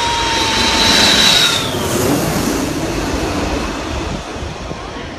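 Jet airliner passing low overhead on landing approach: a high engine whine and rushing jet noise, loudest about a second in, with the whine dropping in pitch as the plane goes past, then the rumble fading.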